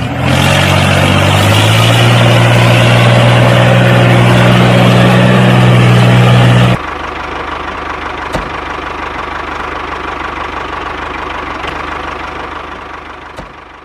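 Engine running steadily and loud, then dropping suddenly to a quieter running sound about seven seconds in, with two short clicks, fading out at the end.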